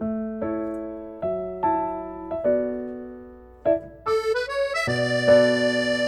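Background music: a light tune of piano chords, each struck and fading, with held accordion notes taking over about four seconds in.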